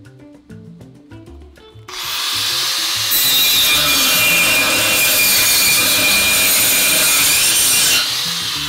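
A modified angle grinder fitted with a saw-type blade cuts into aluminium, roughing in a miter cut. It comes in about two seconds in as a loud, steady rasping cut with a high ring over it, then drops away near the end as the cut stops, with background music under it.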